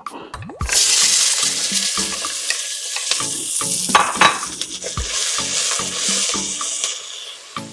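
Chopped green seasoning hitting hot oil in a pot: a loud sizzle starts suddenly about half a second in and keeps frying, easing off slowly toward the end, with a few clicks of a utensil stirring around the middle.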